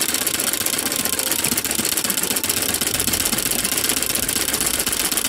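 Straight-stitch sewing machine running fast and steadily, its needle going up and down in rapid, even strokes while embroidering freehand.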